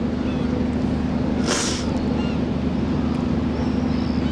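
Steady low drone of a ship's engine running at the harbour. About one and a half seconds in, a woman weeping draws one short, sharp sobbing breath.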